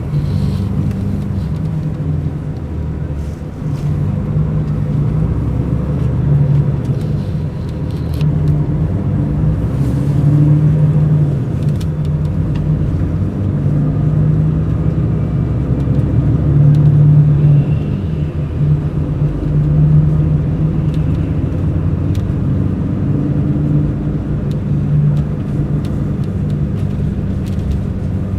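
Mercedes-Benz O500 RSD BlueTec5 coach's diesel engine running under way, its note swelling and easing several times as the coach drives.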